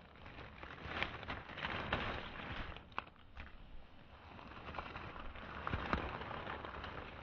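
Dry fallen leaves rustling and crackling as gloved hands brush them aside close to the microphone, in irregular bursts with a few sharp snaps.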